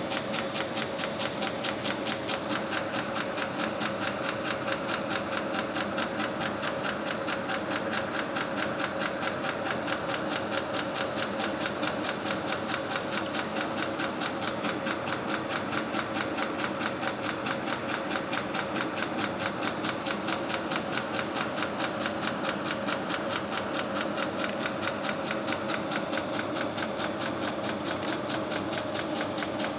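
Briquette press line running steadily under test: a constant motor hum with a fast, even mechanical clatter.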